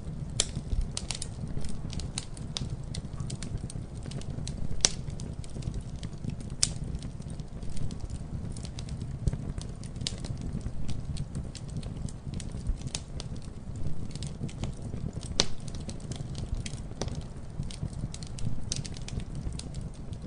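Wood fire burning with a steady low rumble and frequent irregular crackles and pops, a few of them sharper and louder than the rest.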